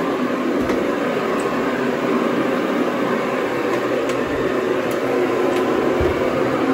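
A machine running steadily with an even drone, and a few faint ticks over it.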